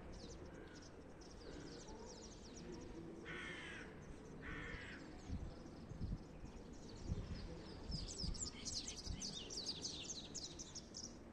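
Birds calling: two short, louder calls from one bird about three and four and a half seconds in, and many quick, high chirps from small birds that grow busier near the end. A few low thuds come between them.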